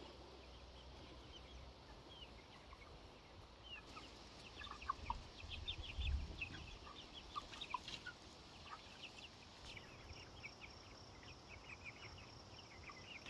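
A flock of young chickens (pullets) making many short, high peeps and soft clucks, faint, growing busier from about four seconds in.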